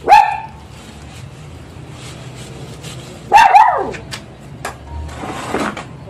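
A dog barking: one sharp bark at the start, then two quick barks about three and a half seconds in.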